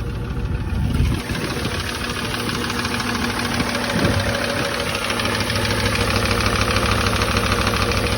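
Porsche Cayenne engine idling, heard close up with the hood open, with a fast steady ticking clatter over the engine note: a noise the owner cannot tell apart as a knock or normal running. The level rises slowly.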